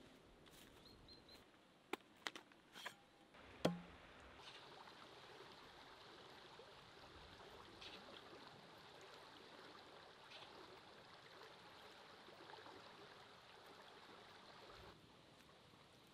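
Footsteps on dry leaves and twigs, with a few sharp snaps and one louder knock in the first four seconds, then faint steady outdoor ambience that drops away about fifteen seconds in.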